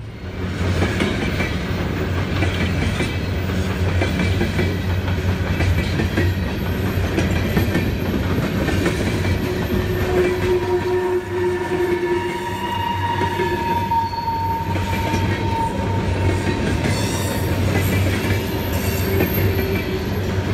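Loud, steady rolling of empty steel coal hopper cars passing at close range, with a heavy rumble and wheel clatter. Thin squealing tones from the wheels rise over it for several seconds around the middle.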